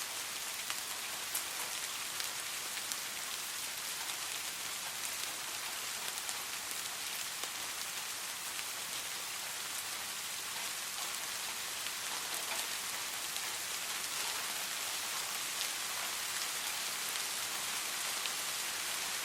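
Soft, steady rain, a fine even hiss with scattered individual drops ticking.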